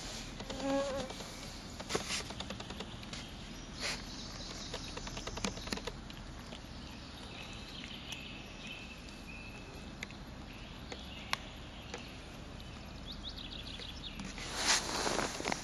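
Insects buzzing, with a few soft clicks and a louder rustle near the end.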